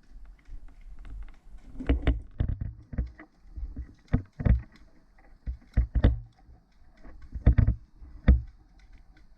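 Irregular thumps and knocks with faint rustling between them, about a dozen over the stretch, the sharpest about seven and a half and eight seconds in.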